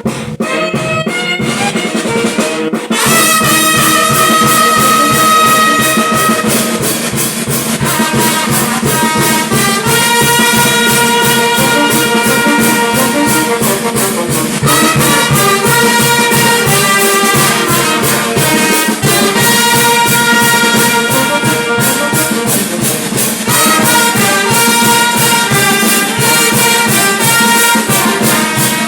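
Brass band music: held brass chords over a steady drum beat. About three seconds in the brass comes in over the drums, which had been playing alone.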